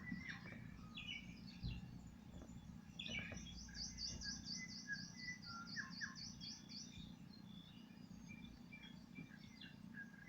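Several wild birds chirping and calling at once, faint and overlapping, with one bird giving a fast run of high repeated notes, about five a second, from about three to seven seconds in.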